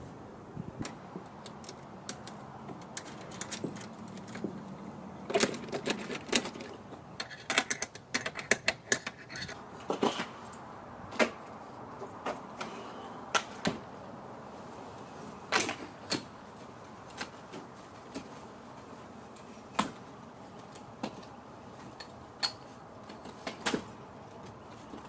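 Irregular sharp clicks and clacks, with a quick run of them from about five to ten seconds in, from the hardware of a Smittybilt roof top tent being unfolded by hand: its straps, buckles, frame and telescoping ladder.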